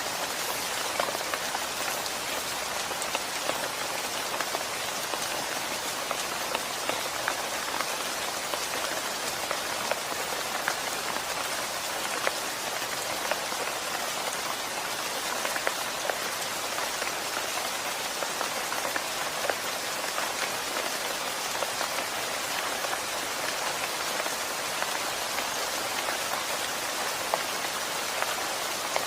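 Steady rain falling on hard surfaces, a constant hiss with many individual drops ticking sharply throughout.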